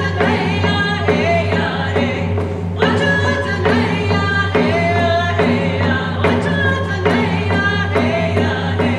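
Two women singing a Native song together, keeping a steady beat on rawhide hand drums struck with beaters.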